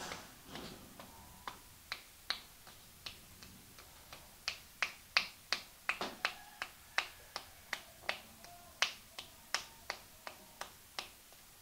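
A run of sharp snapping clicks from hands, irregular at about two to three a second, louder in the middle stretch.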